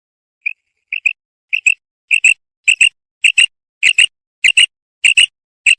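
Female quail calling: a run of sharp high double notes, about ten pairs at just under two a second, opening with a single note about half a second in.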